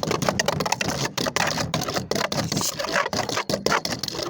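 Beyblade Burst spinning top clattering against a plastic Hypersphere stadium as it spins, a dense rapid rattle of clicks and scrapes.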